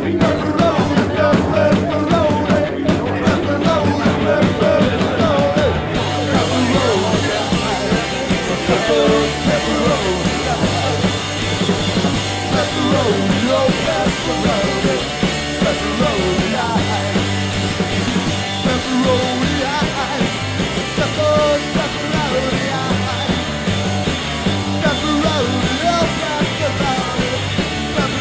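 Rock music with a singing voice over bass; the song gets fuller about six seconds in.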